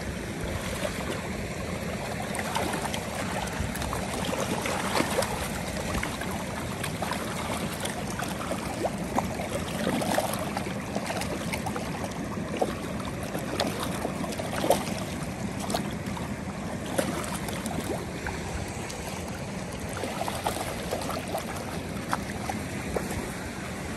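A crowd of trout splashing and churning at the surface of a fish-farm pond as they go for thrown feed pellets: a steady watery splashing dotted with many small sharp splashes.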